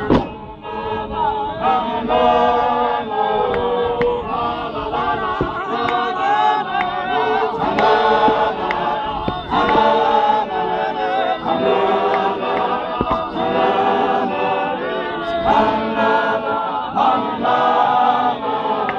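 Large group of men singing a Zion Christian Church Mkhukhu hymn a cappella in harmony, with a sharp thump right at the start and a few fainter thuds through the singing.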